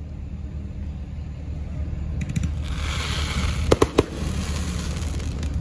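Aerial fireworks going off: a crackling hiss starts about two seconds in, with three sharp bangs in quick succession near the middle. A steady low rumble runs underneath.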